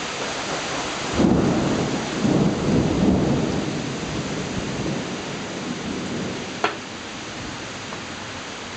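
Heavy rain pouring steadily in a thunderstorm, with a stretch of loud low rumbling from about one to three seconds in. One sharp tap comes later on.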